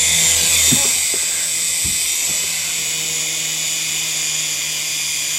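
Small electric motor and rotors of a remote-control toy helicopter in flight, a steady high-pitched whine over a low hum, with a few faint knocks in the first two seconds.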